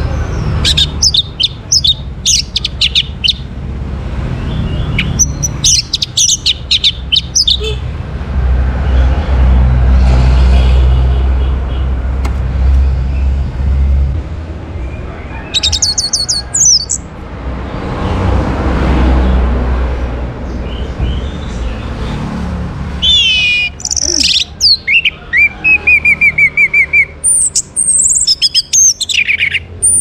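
Orange-headed thrush singing in short bursts of rapid, varied, high whistled and twittering phrases, with a long, dense run of song in the last seven seconds or so. A low rumble swells up in the middle, between the bursts of song.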